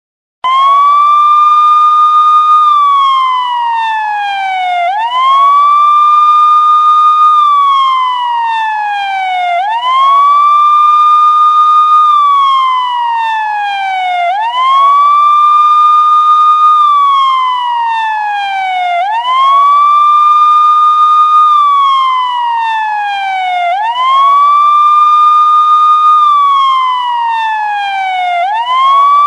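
Police car siren in its slow wail: each cycle climbs quickly to a high note, holds it for about a second and a half, then slides slowly back down, repeating about every five seconds. It comes in sharply about half a second in.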